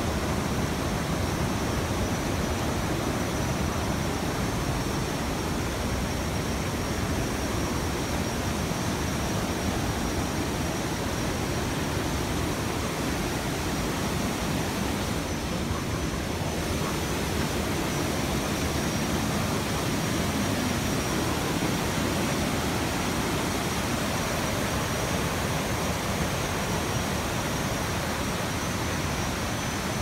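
Constant rushing roar of a rain-swollen waterfall, brown floodwater pouring over a broad rock step in a steady, unbroken stream.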